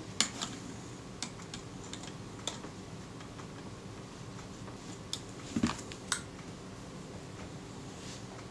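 Scattered small metallic clicks and taps from handling a Kodak Retina folding camera's shutter assembly as it is lifted off the camera body. The loudest is a click with a dull knock about five and a half seconds in.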